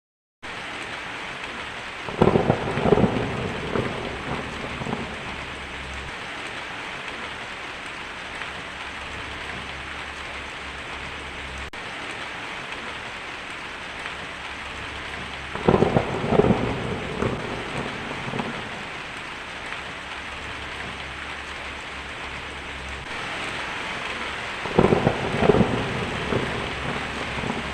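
Heavy rain falling steadily on a tin roof, starting about half a second in, with three rolls of thunder: one about two seconds in, one midway and one near the end.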